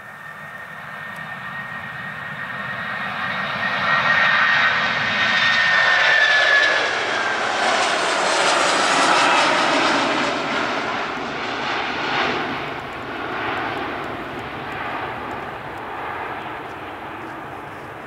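Jet2 Boeing 757-200's two jet engines at take-off power as it accelerates down the runway, lifts off and climbs away. The roar builds to a peak as it passes, its high whine dropping in pitch, then slowly fades.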